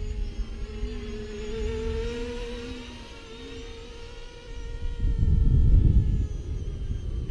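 Convergence VTOL RC plane's electric motors and propellers buzzing in flight, the whine bending in pitch as it passes about two seconds in, then fading. A loud low rumble rises about five seconds in.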